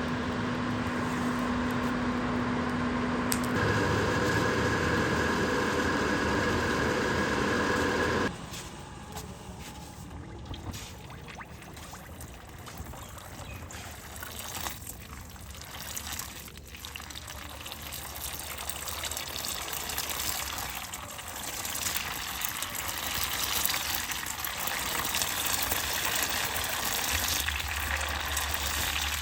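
A steady motor hum with fixed tones, which shifts pitch about three seconds in, cuts off suddenly about eight seconds in. A hissing, sizzling water noise follows, typical of hot forged steel being quenched in water.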